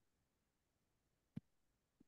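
Near silence: room tone, with one faint short click about one and a half seconds in.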